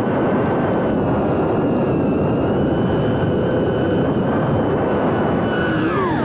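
FPV quadcopter's motors and propellers whining at a steady pitch over heavy rushing noise. Near the end the whine drops sharply in pitch as the throttle is chopped.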